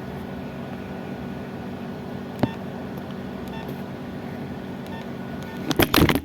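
A steady low hum with a single sharp click about two and a half seconds in and a few faint ticks. Near the end comes a quick flurry of loud knocks and rattles of handling.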